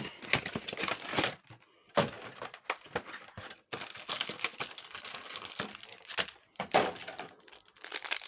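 Foil booster-pack wrapper crinkling and crackling in the hands as it is torn open and handled, with irregular sharp crackles.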